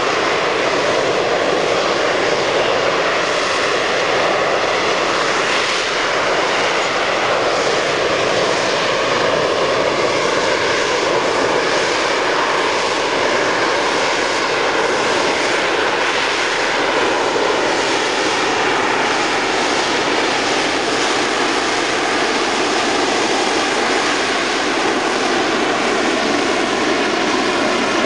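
Harrier GR9A's Rolls-Royce Pegasus vectored-thrust turbofan in the hover: a steady, loud rush of jet noise with faint whining tones that drift slowly up and down in pitch.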